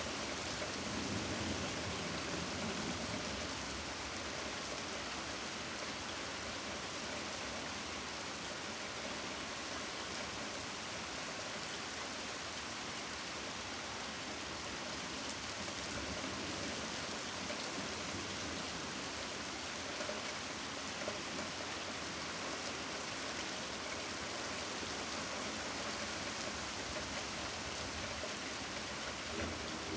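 Steady rainfall, an even hiss of rain with no let-up.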